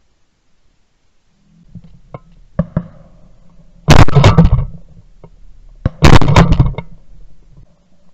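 Two shotgun shots from a Benelli SBE3 semi-automatic shotgun, very loud and about two seconds apart, each with a short ringing tail. A few lighter clicks come before them.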